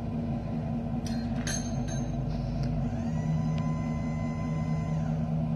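Vehicle engine idling steadily, with a few sharp clicks a second or two in. About three seconds in the note changes and a faint steady whine joins it.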